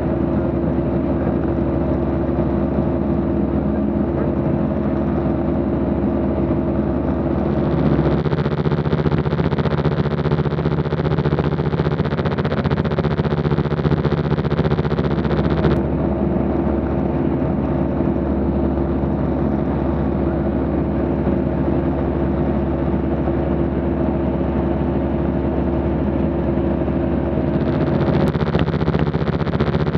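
Light aircraft's piston engine and propeller in steady cruise: a constant drone of several steady tones over a rushing of air. The tone changes abruptly about 8, 16 and 28 seconds in.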